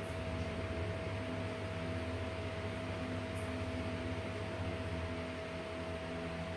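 Steady mechanical hum and hiss: a constant high whine over a low drone, unchanging throughout.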